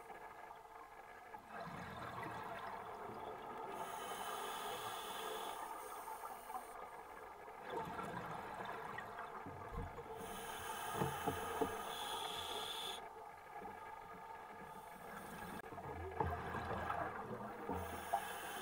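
Underwater ambience recorded by a camera moving over the sandy seabed: a steady hiss and hum, with a higher hiss that swells and drops away every few seconds and a few soft knocks in the second half.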